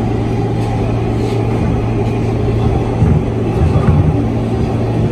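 An R160A-2 subway car running through a tunnel, heard from inside the car: a steady loud rumble of wheels on rail with a low, even motor hum, and a few heavier low thumps about three to four seconds in.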